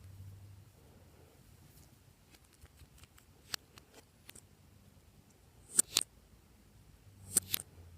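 Glossy slime being worked by hand, giving off sharp sticky clicks and air-bubble pops: scattered single pops, then two quick pairs of louder ones, one past the middle and one near the end.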